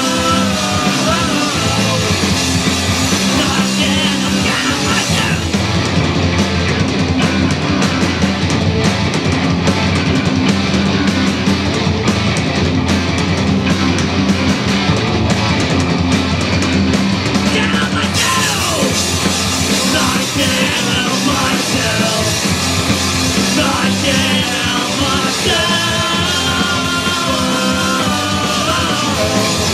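Live rock band playing loudly: electric guitars, bass guitar and a drum kit, with a male lead singer.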